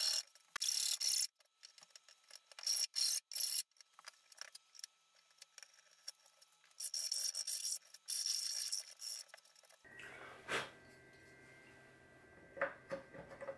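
Hand file rasping back and forth in a rectangular cutout in an enclosure lid, in short runs of quick strokes, enlarging the opening for a mains power connector. The filing stops about two-thirds of the way in, leaving a faint steady hum and two light knocks.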